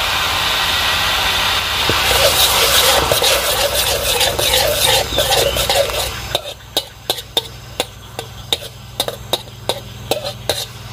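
Garlic, chilli and curry leaves frying in melted butter in a wok, sizzling loudly with spitting. About six seconds in the sizzle drops off suddenly, and a metal spatula clicks and scrapes against the wok about three times a second as it is stirred.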